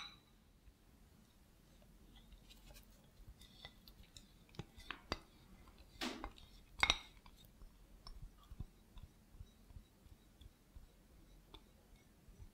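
Faint clicks and light taps of utensils and a bowl against a glass mixing bowl while melted chocolate is poured into cheesecake batter, with a few louder knocks about five to seven seconds in.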